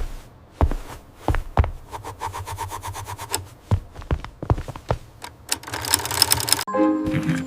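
A series of knocks and clicks, with a stretch of rapid, even ticking in the middle and a brief hissing rush near the end; pitched music comes in just after it.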